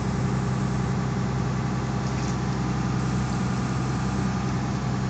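Steady low drone of an engine running, heard inside the boat's wooden cabin, with an even hum that does not change.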